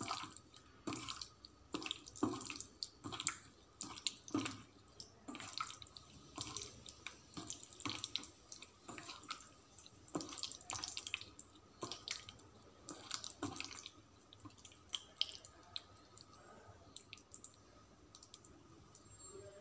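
A hand squeezing and mashing soaked, boiled tamarind in water in a steel bowl: a run of wet squelches and splashes, about two a second, that thins out in the last few seconds.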